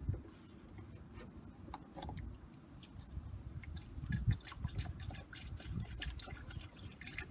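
Antifreeze pouring from a plastic jug through a funnel into a truck's radiator filler neck, topping up the cooling system after a flush. The splashing grows busier from about three seconds in as the radiator fills.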